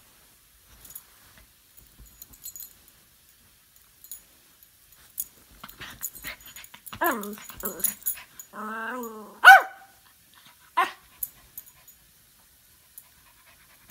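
Small terrier vocalising in play at a fidget spinner. About seven seconds in come a couple of short yips, then a wavering growl of about a second, a sharp loud bark, and one more short bark about a second later.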